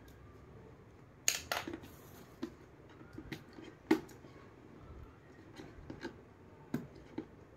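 Scattered clicks and taps of hands handling a cardboard box and its contents, the sharpest about a second in and just before four seconds.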